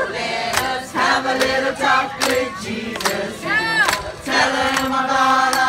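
A group of men and women singing together into microphones, several voices at once. About three and a half seconds in, one voice swoops up and back down in a brief call.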